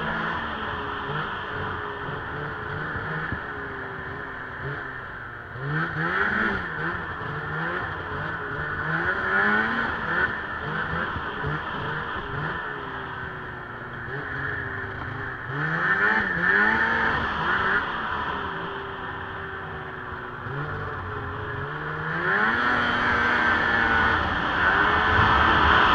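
Lynx 700 snowmobile engine running as it rides along a snow trail, its pitch climbing and dropping with the throttle in about four surges, over a steady rushing noise. It gets louder near the end.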